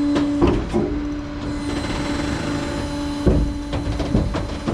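Truck engine running with a steady hum, with a few knocks and clunks about half a second in and again after three seconds.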